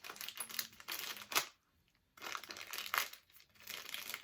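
Plastic toy packaging crinkling and rustling as it is handled, in irregular bursts with a few sharper crackles. It breaks off briefly about halfway through, then starts again.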